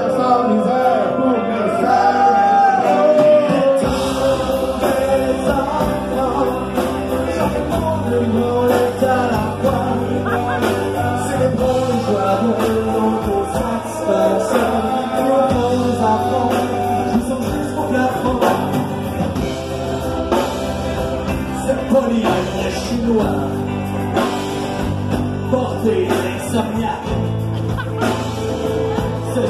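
Rock band music with group singing. For the first few seconds the voices sing almost alone; about four seconds in, bass and drums come in and the full band plays on.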